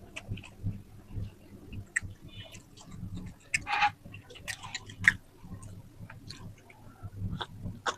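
Close-up chewing, open-mouthed and wet, with clicks and smacks in a rhythm of a few chews a second and a couple of sharper crunchy bites about four and five seconds in.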